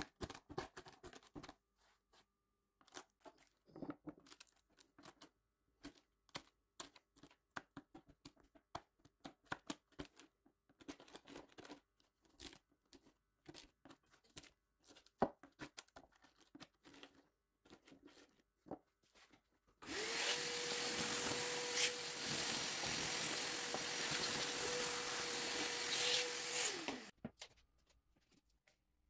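Scattered knocks and clicks of handling, then a small electric motor, like a power tool or shop vacuum, runs steadily for about seven seconds, starting about two-thirds of the way in and winding down near the end.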